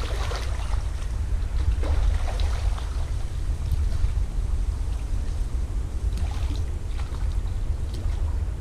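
Steady low rumble of wind buffeting the microphone outdoors, with a few faint brief sounds higher up now and then.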